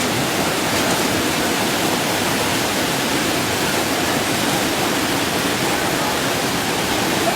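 Fast-flowing flash-flood water rushing steadily, an even loud wash of noise with no breaks.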